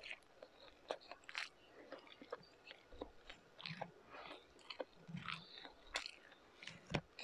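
A person chewing meat and rice close to the microphone, with frequent short, sharp mouth clicks.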